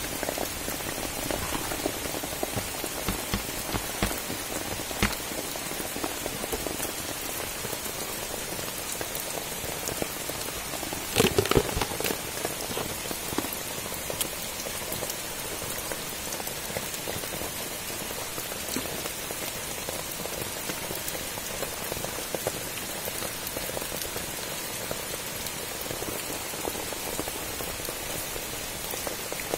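Steady rain pattering on wet ground, with many small drop ticks. About eleven seconds in there is a brief, louder splash or knock.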